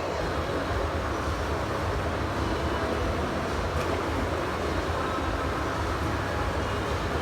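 Steady low rumble and road noise of a moving bus, heard from inside the vehicle.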